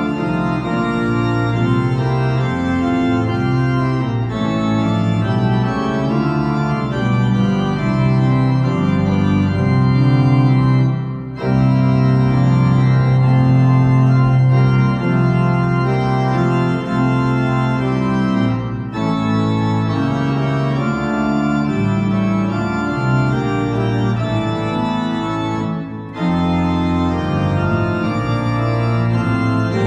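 Eisenbarth pipe organ playing full sustained chords over a held pedal bass, with a brief break in the sound about eleven seconds in and another short one later.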